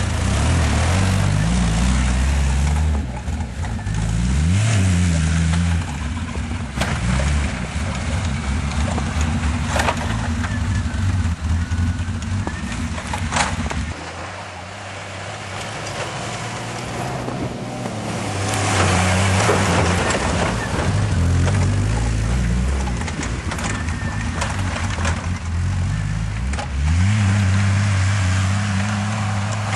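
Jeep CJ-7 engine running under load while driving off-road in snow, the revs rising and falling repeatedly as it climbs and turns.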